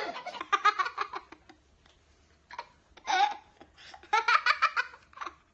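A young child laughing in about four bouts of quick giggles, with short pauses between them.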